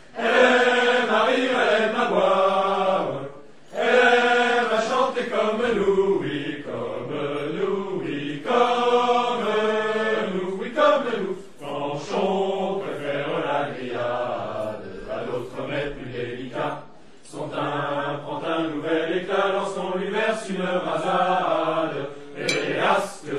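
Voices singing a song in unison, line after line, each phrase lasting a few seconds with brief pauses for breath between them.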